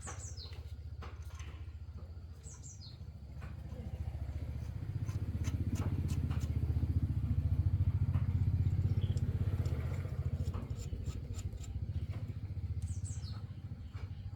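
Tractor engine running with a steady low rumble that builds up about four seconds in, is loudest around the middle and then eases back. Birds chirp briefly a few times over it.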